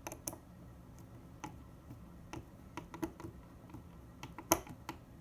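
Small Phillips screwdriver turning screws, fitted with rubber feet, into a hard drive's side mounting holes: irregular light clicks and ticks, with one louder click near the end.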